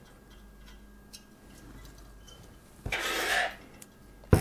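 Handling of a CPU cooler heatsink: a short rushing sound about three seconds in, then a single sharp knock near the end as the heatsink is stood on the desk.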